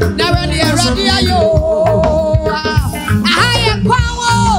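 A woman singing into a microphone over upbeat live band music with hand drums, holding long notes about a second and a half in and again near the end.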